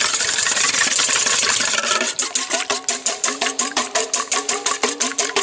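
Wire whisk beating a raw egg in a stainless steel bowl: fast, loud scraping and clinking of the wires against the metal, settling into an even rhythm of several strokes a second about two seconds in.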